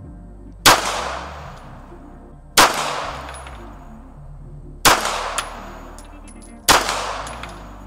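Four pistol shots fired about two seconds apart, each a sharp crack that rings out and fades over about a second.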